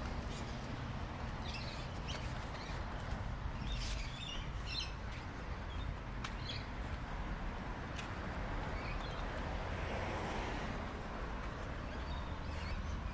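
Birds chirping outdoors, a cluster of short calls in the first few seconds, over a steady low rumble of outdoor background noise.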